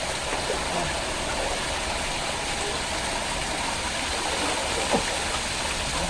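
Waterfall rushing steadily, a constant even roar of falling water, with one brief sharp knock about five seconds in.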